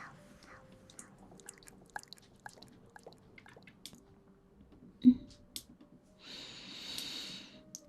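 Close-miked ASMR mouth sounds: scattered soft wet clicks, a single sharp thump about five seconds in, then a breathy hiss for about a second and a half near the end.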